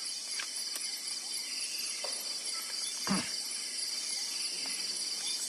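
Night insect chorus, crickets trilling steadily in a fast pulsing rhythm at a high pitch. A single soft thump about three seconds in.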